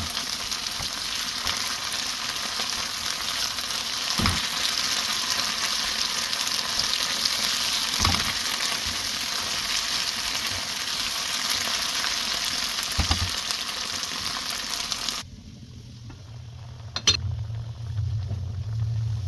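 Food sizzling as it fries, with a few brief knocks along the way. The sizzling cuts off suddenly about fifteen seconds in, giving way to a low hum and a single sharp click.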